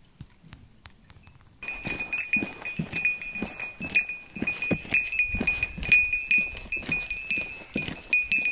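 A small bell carried by a walking hiker, jingling with every step over the footsteps on a wooden boardwalk. It starts suddenly about a second and a half in, with two or three strikes a second.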